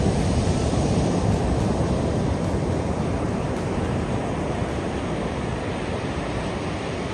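Ocean surf on a sandy beach: a wave breaks, then its wash hisses up the sand. The sound is loudest at the start and slowly eases off.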